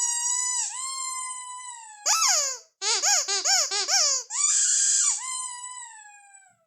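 Ledraplastic rubber squeaky toy being squeezed: a long squeak, a short rising one, a quick run of about six short squeaks, then a long squeak that fades and falls slightly in pitch near the end.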